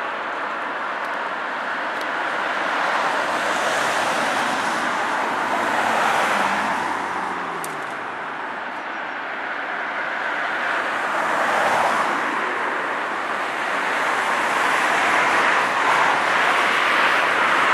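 Road traffic passing, its tyre and engine noise swelling and fading as cars go by. About six seconds in, one vehicle's engine note falls in pitch as it passes.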